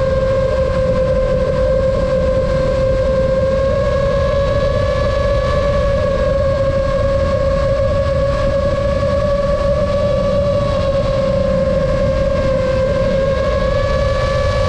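FPV quadcopter's motors and propellers whining at a steady high pitch in flight, wavering slightly up and down, over a constant low rushing noise.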